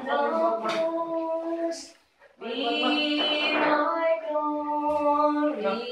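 Voices singing a slow worship song in long held notes, breaking off briefly about two seconds in before the next phrase.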